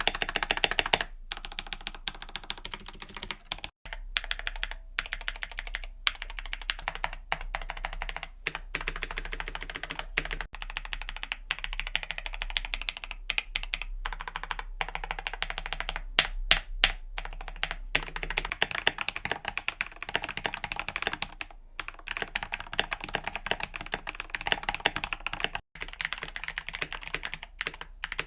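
Fast continuous typing on a mechanical keyboard fitted with Gateron linear switches, Milky Yellow and Ink Black, in a dense run of key clacks. The typing breaks off with brief cuts several times as the clips change.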